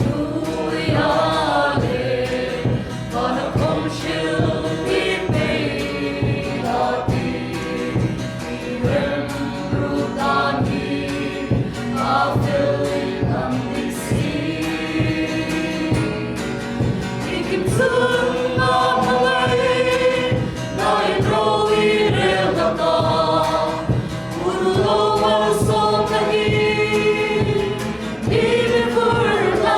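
A worship team singing a gospel praise song together in chorus, over a steady beat of instrumental backing.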